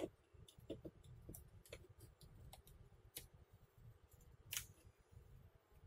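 Faint, scattered clicks and scratches of a hobby knife and tweezers picking at the plastic screen bezel of a laptop to lift off the screw-cover stickers, with sharper clicks at the start and about four and a half seconds in.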